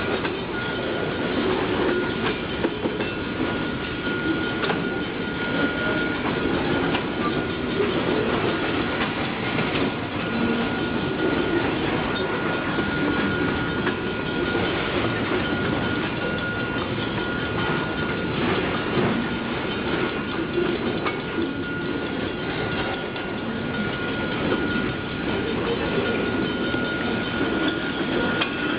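Freight train of boxcars rolling steadily past, a continuous noise of steel wheels running on the rails, with a thin steady high-pitched tone above it.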